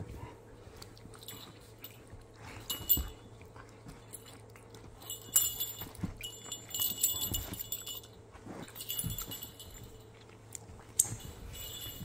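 Two dogs, a red-and-white Siberian husky and a white dog, play-fighting and mouthing each other: irregular scuffling and a few soft thumps, with short jingling bursts from their collar tags several times.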